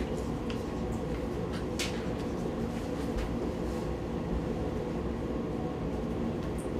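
Steady low hum of room ventilation, with a few faint clicks scattered through it.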